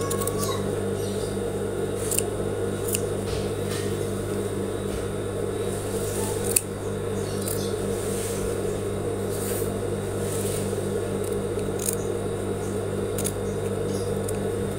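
Scissors cutting through cotton fabric in scattered snips, trimming a sewn seam allowance, over a steady low hum.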